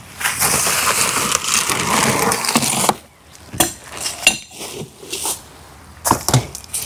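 Plastic packing wrap rustling loudly as it is pulled out of a cardboard box, for about three seconds, followed by a few scattered knocks and taps.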